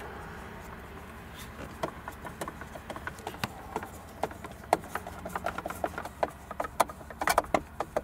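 Phillips screwdriver driving small bolts into the plastic back cover of a car's centre-console armrest: scattered light clicks and taps of metal on plastic over a steady low hum.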